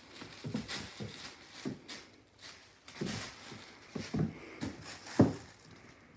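A kitten scampering and pouncing on a wooden floor, making irregular thumps and paw patter, mixed with plastic bags rustling and crinkling as it swats at a feather wand toy.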